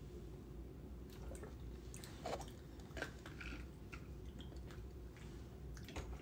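Faint swallowing and mouth sounds from drinking bottled water and tasting it, with a few short soft clicks scattered through.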